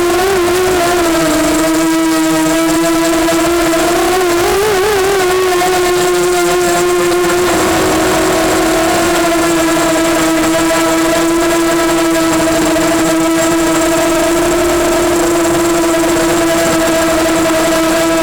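Brushless motors and propellers of an EMax Nighthawk 250 racing quadcopter whining steadily in flight, the pitch wavering briefly with throttle changes near the start and about four to five seconds in, then holding level.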